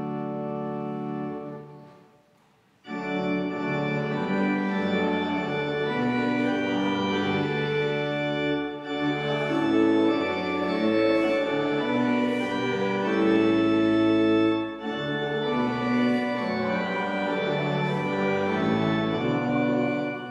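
Church organ postlude: a held chord releases about two seconds in, and after a brief pause the organ plays on with full sustained chords that change every second or so.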